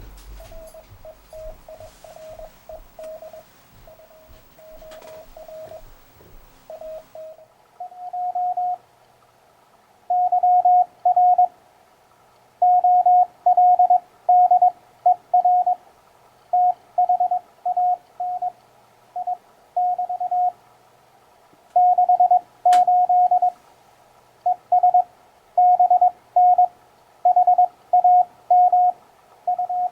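Morse code (CW) sent as a keyed single-pitch tone from a ham radio, dots and dashes forming words and phrases. For the first several seconds the tone is fainter, slightly lower and has some hiss under it; from about eight seconds in a louder, slightly higher tone carries on the sending. A sharp click sounds once about two-thirds of the way through.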